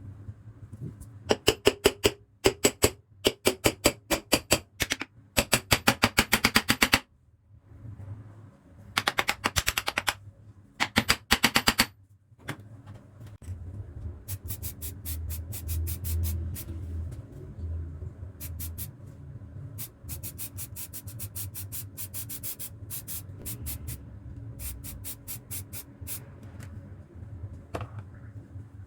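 Rapid mechanical clicking, several clicks a second, in bursts of one to two seconds separated by short pauses. About halfway through it gives way to sparser clicks over a steady low hum.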